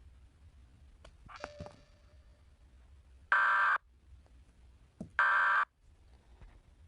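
Two short, loud bursts of harsh electronic data tone, about two seconds apart: the Emergency Alert System's end-of-message code, which signals that the alert is over.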